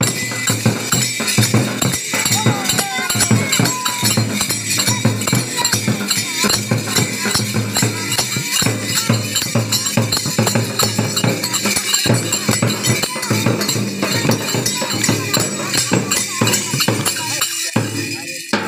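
Rural Holi folk music: a dholak and a metal-shelled drum beaten by hand in a fast, dense rhythm, with steady metallic jingling over it and voices singing along.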